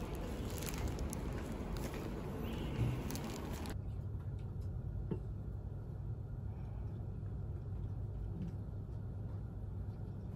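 Plastic food packaging rustling and crinkling as it is handled, for about the first four seconds. It then cuts off sharply to a low steady hum with one faint click.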